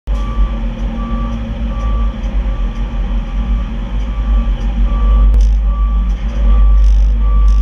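Kenworth dump truck's backup alarm beeping about once every 0.8 seconds, with a gap of a few seconds midway, over the low rumble of the diesel engine as the truck reverses.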